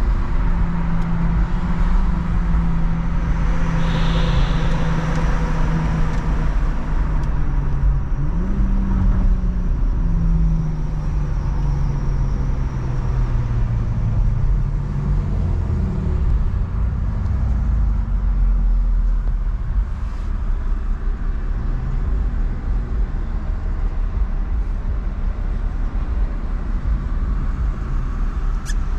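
BMW M340i's turbocharged 3.0-litre B58 inline-six running under way along with road rumble, on the stock exhaust. The engine note holds steady, rises briefly about eight or nine seconds in, then slowly falls in pitch over the following several seconds.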